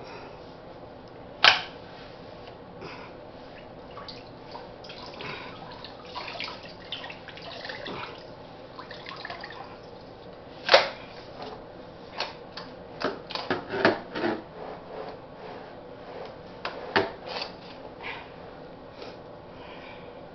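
Handling noises while a chest freezer is defrosted: scattered knocks and clunks with rustling and some watery sounds. The sharpest knocks come about a second and a half in and about eleven seconds in, with a run of clunks after that.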